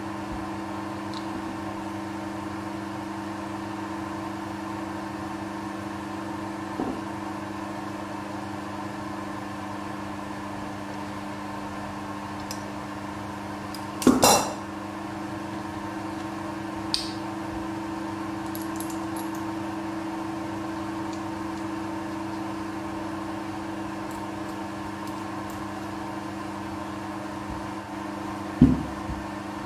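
Steel parts and a pair of pliers handled on a towel-covered bench: one sharp metallic clink about halfway through and another near the end, over a steady hum.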